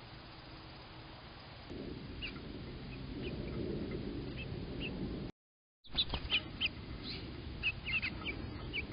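Small birds chirping, short high calls over a steady low background noise. After a brief dropout about five seconds in, the chirps come louder and more often, with a few sharp clicks.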